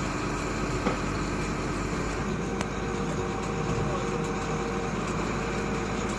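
Diamond core drilling rig running: a steady engine and machinery drone, with one sharp click about a second in.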